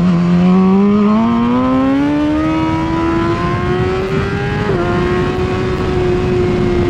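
2016 BMW S1000RR's inline-four engine, heard onboard, rising in revs under hard acceleration with wind rushing past. Nearly five seconds in an upshift drops the revs a step, and the engine then holds steady at speed.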